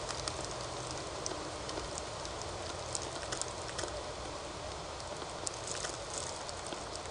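Steady hiss from a trail camera's microphone, with scattered light clicks and crackles at irregular intervals.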